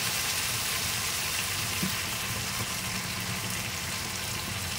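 Crab curry sizzling and bubbling in a hot wok as a thin stream of coconut milk is poured in; the steady hiss gradually quietens as the liquid cools the pan.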